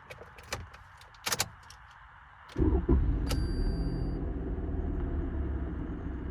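A few light clicks, then about two and a half seconds in the 2019 Toyota Corolla's 2.0-litre four-cylinder engine starts and settles into a steady idle that eases down slowly. A short high beep sounds just after it catches.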